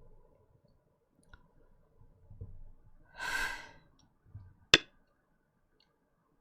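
A person heaving one long sigh about three seconds in, followed just under two seconds later by a single sharp click, the loudest sound.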